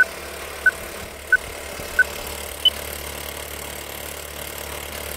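Old film countdown-leader sound effect: four short, evenly spaced beeps about two-thirds of a second apart, then one higher beep, over a steady projector-like running noise with a low hum.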